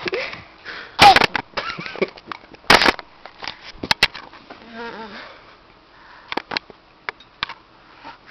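A toddler's mouth and voice sounds while sucking on a lime: a short loud vocal cry about a second in, scattered wet smacks and clicks, and faint babble around the middle.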